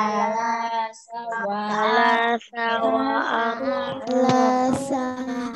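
A child's voice reading Arabic number words aloud in a sing-song chant, holding long syllables at a steady pitch, with two short breaks.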